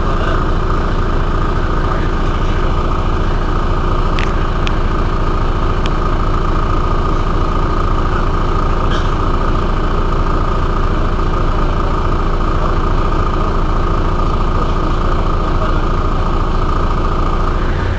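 Mercedes-Benz O405 N city bus engine idling steadily while the bus stands still, with a thin steady whine running over the engine note.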